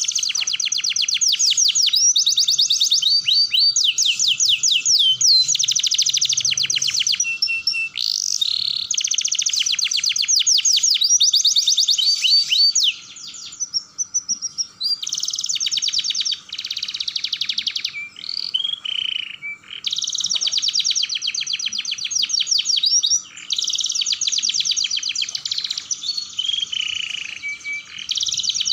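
Domestic canary singing long phrases of fast rolling trills, each a rapid run of repeated high notes, with short breaks about 13 and 19 seconds in.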